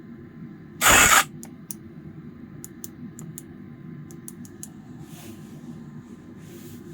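DeWALT cordless impact wrench triggered briefly about a second in: one short harsh burst lasting under half a second, followed by light clicks. The repairer judges its gearbox shot and the tool is said to work poorly.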